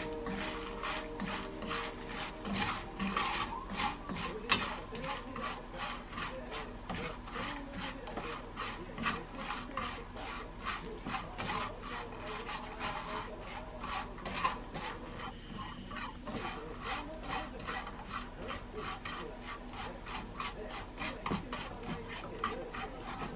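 Dried baby sardines being stirred and dry-roasted in a pan: a utensil scrapes the pan in a steady, rhythmic run of strokes, a few a second.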